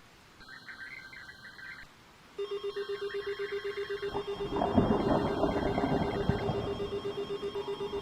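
A trilling, telephone-like ring sounding in three bursts of about a second and a half each. About two seconds in, a low tone pulsing several times a second joins it. About four seconds in, a rumbling noise joins as well.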